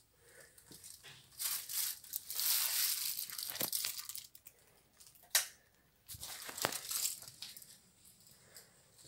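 Rustling and crinkling, loudest from about one and a half to four seconds in, with a sharp click a little after five seconds and more rustling soon after.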